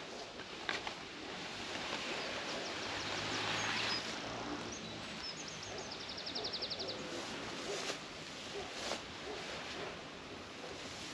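Nylon hammock fabric and its stuff sack rustling as the hammock is pulled out and shaken open, with a bird singing short chirps and a quick trill about halfway through.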